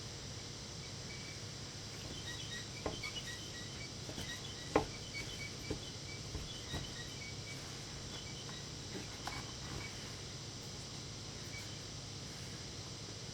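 Quiet background noise with a few scattered clicks and taps of eating utensils on the meal's container, the loudest about five seconds in. Faint high chirping sounds in the background through most of the first ten seconds.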